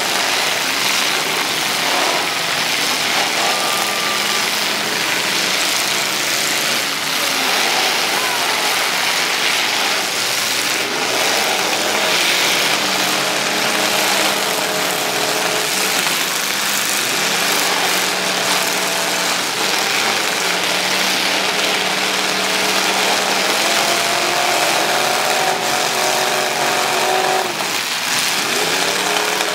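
Several demolition-derby car engines running hard at once over a steady din, revving up again and again, their pitch climbing a few times.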